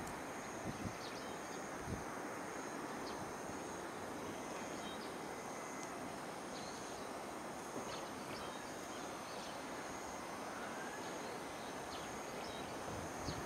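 Faint, steady outdoor background noise with a high, pulsing trill and a few scattered faint chirps. No locomotive engine stands out yet.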